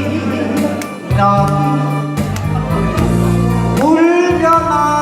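A singer performing a Korean pop song with instrumental accompaniment, holding a drawn-out sung note over the backing about four seconds in.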